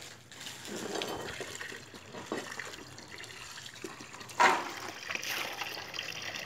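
Water from a garden hose pouring steadily into a plastic basin while hands stir and lift pomegranate arils in the water, with one louder splash about four and a half seconds in.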